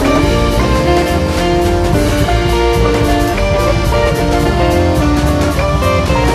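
Background music with a steady drum beat under a melody of held notes.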